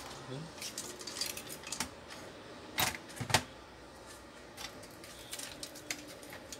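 Metal and plastic parts of a Canon iP2770 inkjet printer clicking and clacking as they are handled and fitted back together by hand, with two louder knocks about three seconds in.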